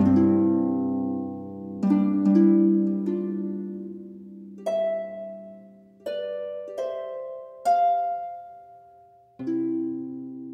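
Background music: slow plucked chords, each struck sharply and left to ring and fade, about eight in all.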